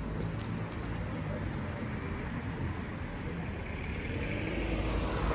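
Street traffic: car engines running at low speed, with a passing car's engine and tyre noise swelling near the end.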